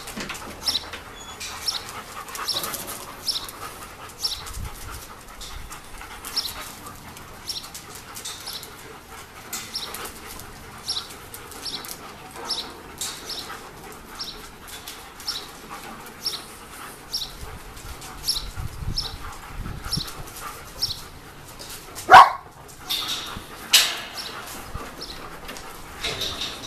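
Dogs in kennel runs whining, with short high-pitched sounds repeating about once a second. One loud, sharp dog cry stands out near the end.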